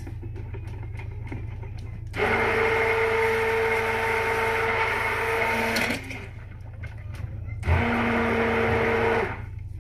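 Stick blender running in soap batter in two bursts, mixing in fragrance oil: a steady motor whine for about four seconds starting about two seconds in, then a shorter burst near the end.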